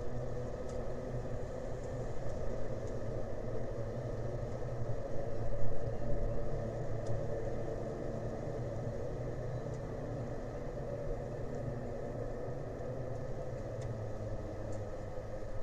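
Steady low engine rumble with a droning hum, swelling briefly about five to six seconds in.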